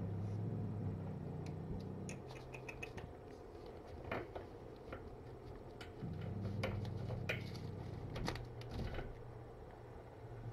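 Mother cat purring, a low steady hum that stops about two seconds in and starts again after six seconds, with scattered soft clicking ticks from her licking and grooming.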